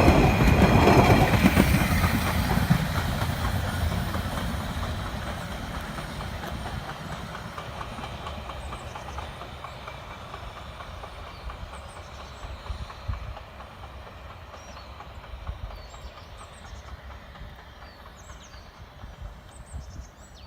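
Narrow-gauge steam train running away past the listener: the rumble and rhythmic clickety-clack of its wheels over the rail joints fade steadily into the distance. A high wheel squeal dies away in the first second or two.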